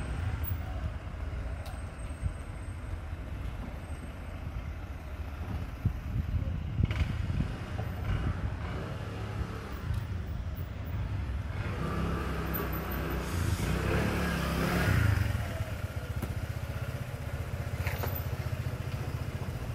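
Street noise: a steady low rumble with a few sharp clatters, and a motor vehicle passing that swells and is loudest about fifteen seconds in.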